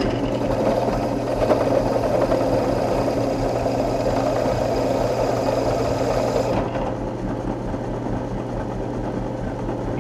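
Drill press running with a solid carbide bit cutting into a steel plate: a steady motor hum under a rough, grinding cutting noise. The cutting noise stops about two-thirds of the way in, leaving the motor running on its own.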